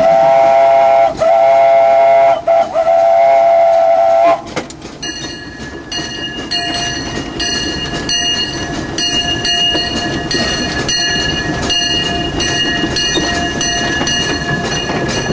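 Disneyland Railroad steam locomotive's whistle blowing a loud chord for about four seconds, broken twice, heard from inside the cab. The whistle then stops and the train runs on with a steady high-pitched ringing tone over the rumble and clicking of the wheels.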